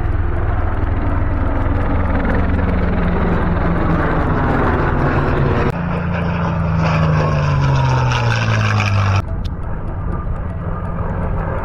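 Propeller airplanes flying past, the engine note falling in pitch as each passes. The sound breaks off abruptly about halfway through and again near the end.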